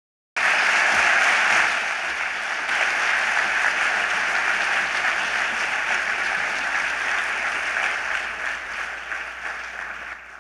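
Audience applauding: a steady patter of many hands clapping that starts suddenly and dies away near the end.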